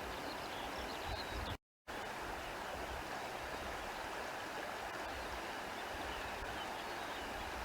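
Steady countryside ambience: an even rushing like a flowing stream, with a few faint high chirps. The sound cuts out completely for a fraction of a second about a second and a half in.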